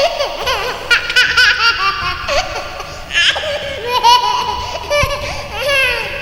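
Young children laughing and giggling in repeated high-pitched bursts.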